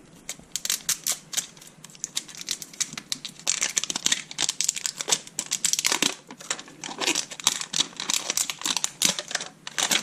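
Plastic and paper wrapping on a toy capsule crinkling and tearing as a wrapping layer is pulled off by its tear-strip zipper, a dense run of crackles that grows louder after a few seconds.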